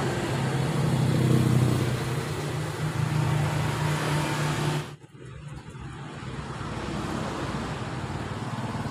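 A vehicle engine running steadily, which cuts off abruptly about five seconds in and leaves a fainter engine hum.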